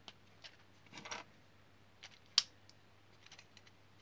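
Plastic Wilko Blox building bricks being handled and pressed onto a model truck cab: scattered light clicks and taps, the loudest a single sharp click a little past the middle.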